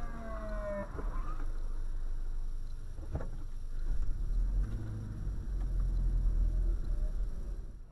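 Steady low rumble of a car's engine and road noise inside the cabin, with a short knock about three seconds in.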